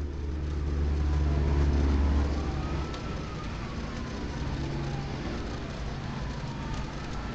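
A motor vehicle rumbling past, loudest in the first two seconds, while a distant siren wails slowly up and down, the sign of an emergency vehicle on its way.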